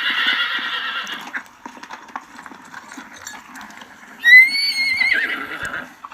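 Horse neighing: a whinny trails off about a second in, hooves clop unevenly, then a loud high neigh rises and holds for about a second and a half from around four seconds in.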